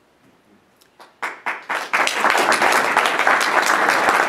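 Audience applause: a few scattered claps about a second in, quickly filling into steady clapping from many hands.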